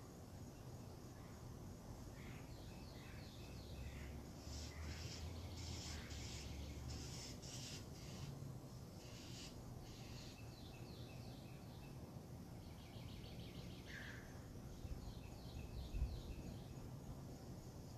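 Birds singing at a distance: several phrases of quick repeated chirps. Beneath them is a low rumble that swells for a few seconds about four seconds in, and there is a brief thump near the end.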